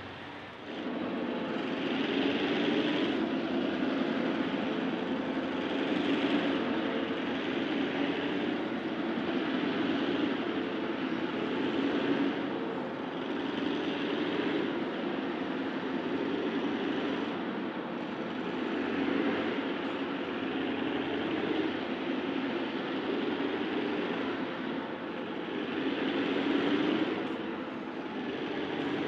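Vintage diesel locomotives working hard under load, hauling a loaded grain train up a steep grade. The engines' loud running swells and fades every few seconds, and it comes in about a second in.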